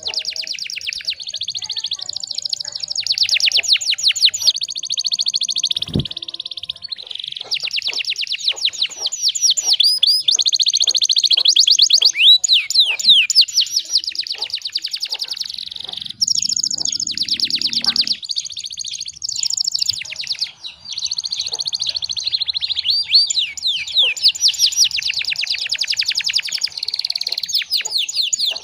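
Domestic canary singing a long, unbroken song of fast trills and rolling runs of rapid repeated notes, with a single low thump about six seconds in.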